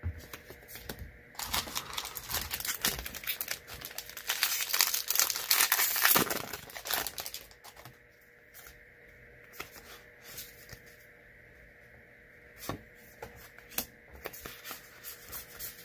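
Foil wrapper of a Magic: The Gathering booster pack crinkling and tearing as it is opened, dense and loudest for several seconds in the first half. After that come scattered light clicks and taps.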